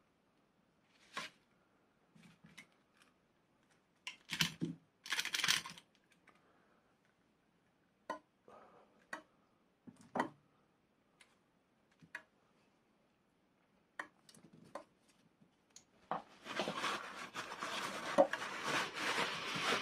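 Scattered light clicks and taps with a couple of short rustles, then, from about sixteen seconds in, steady rustling and crinkling of blue paper kitchen towel as a hand folds and presses it over freshly fried chips to blot off the oil.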